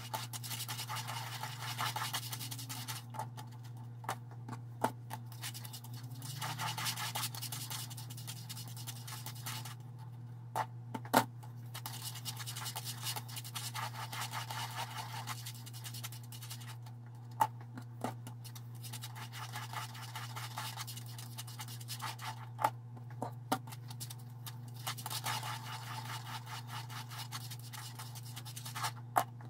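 Hands rolling and pressing soft yeast dough balls on an oiled countertop: soft rubbing and squishing in stretches of a few seconds, with scattered small clicks and squeaks from the dough. The dough squeaks like this when it is good. A steady low hum runs underneath.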